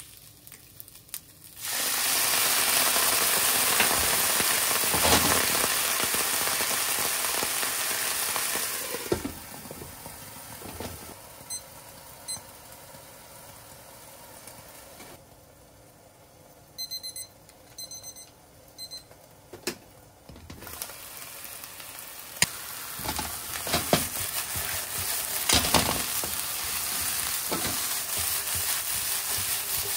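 Sake poured into a hot frying pan of okra and chikuwa hits the pan with a sudden loud hiss and sizzle. The sizzle lasts several seconds and then settles to a quieter sizzle under a glass lid. Partway through, a digital kitchen timer beeps in short clusters, and near the end the loud sizzling returns with spatula scrapes and knocks as the food is stir-fried.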